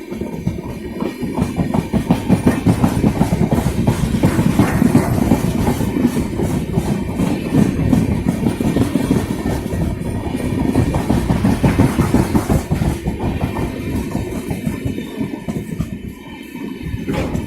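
Train running past at speed, its wheels clattering rapidly over the rail joints.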